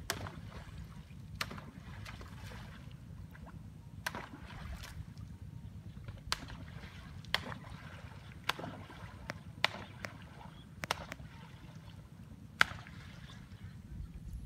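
Sharp splashes of a long pole slapping the water of a shallow pond, about every one to two seconds at an uneven pace, over a steady low rumble.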